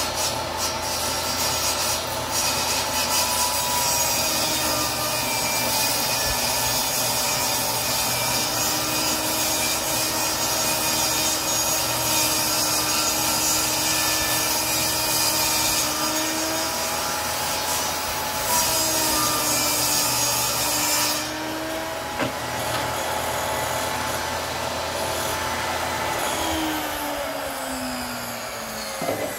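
Benchtop table saw cutting red oak flooring strips, its motor whine dipping in pitch each time the blade takes the load. About three quarters of the way through the cutting noise stops, and near the end the motor winds down with a falling whine as the saw is switched off.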